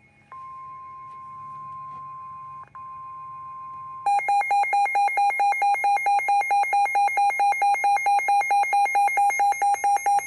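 NOAA Weather Radio's steady 1050 Hz warning alarm tone, signalling an incoming warning, with a brief break partway through. About four seconds in it gives way to a louder, rapid electronic beeping from a weather alert radio's alarm, several beeps a second.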